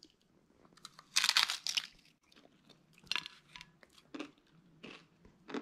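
Crisp fried corn tostada shell crunching as it is bitten: a dense burst of crackling crunches about a second in, then a few scattered crunches as it is chewed.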